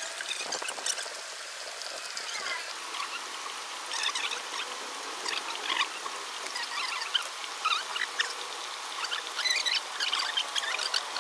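Steady hiss of falling rain, with scattered short high chirps and clicks over it.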